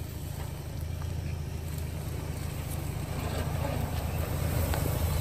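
Ford Bronco Sport SUV's engine running low and steady as it crawls along a dirt trail, growing louder as it approaches, with a few faint ticks.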